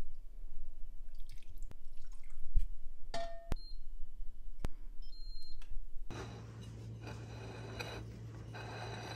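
Liquid dripping and a few sharp clicks, then short electronic beeps from an Instant Pot's touch control panel as its buttons are pressed. From about six seconds only a steady low hum remains.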